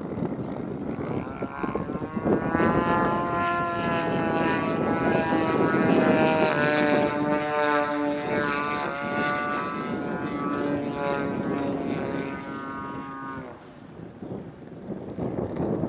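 30cc two-stroke petrol engine and propeller of a Seagull Edge 540 radio-control aerobatic plane in flight, its pitch sliding up and down with throttle and passes. It fades briefly near the end, then grows louder again.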